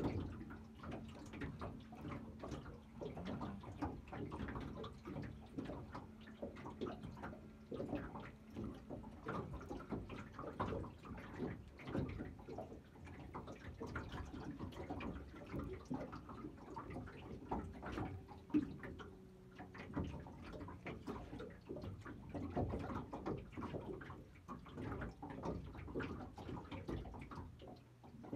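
Water lapping and slapping irregularly against the hull of a small fishing boat, with small knocks and splashes.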